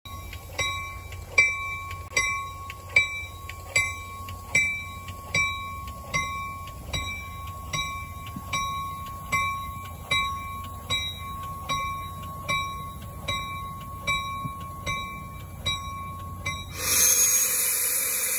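A railroad bell strikes steadily, about five times every four seconds, over the low rumble of a Metra commuter train standing at the platform. Near the end the strikes stop and a loud rush of hissing air takes over, typical of the train's air brakes releasing as it departs.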